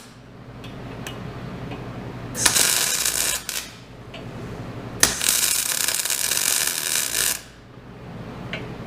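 MIG welder laying tack welds on steel: two sputtering, crackling bursts, a short one about two and a half seconds in and a longer one about five seconds in, each cutting off sharply. A low steady hum runs underneath.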